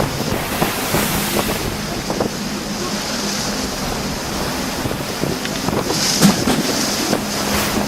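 Storm wind and heavy seas, with wind buffeting the microphone and irregular knocks and splashes over a faint steady hum. A sharp hit about six seconds in is the loudest.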